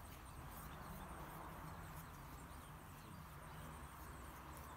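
Faint scrubbing of a paintbrush working liquid rust treatment into sanded bare steel, over a low steady outdoor rumble.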